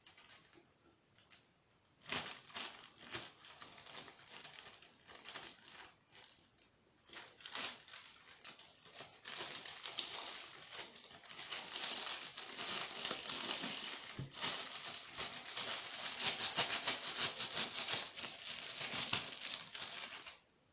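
Plastic zip-top bag crinkling and rattling as the Poopsie slime 'magic' powder is shaken out of it, in patches at first and then steadily and louder, stopping just before the end.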